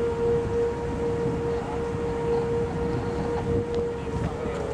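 Outdoor tornado warning siren sounding a steady, held tone, over a low rumble of background noise.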